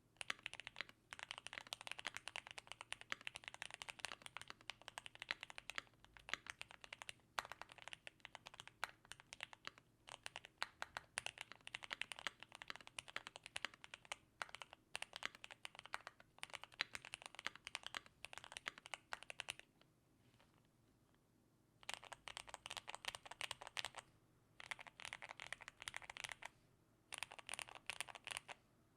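Foam-modded Keychron Q1 mechanical keyboard with lubed Gateron Milky Yellow switches and PBT keycaps, typed on in fast, steady runs of keystrokes. The typing stops for about two seconds roughly two-thirds of the way in, then resumes with two short pauses near the end.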